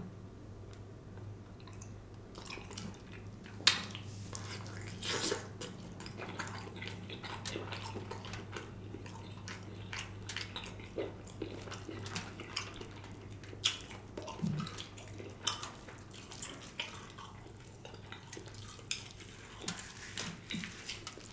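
Close-miked eating of a smoked turkey leg: scattered wet mouth clicks, bites and chewing noises, irregular and sharp, over a low steady hum.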